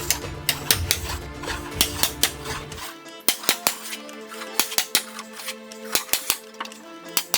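Background music over many sharp, irregularly spaced taps: hand-tool work on a wooden door, such as a mallet striking a chisel while cutting the carved pattern.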